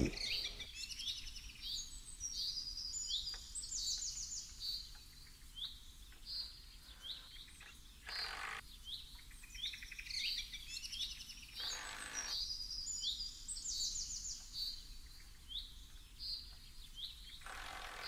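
Songbirds chirping and trilling: many short, quick, high-pitched phrases repeating and overlapping.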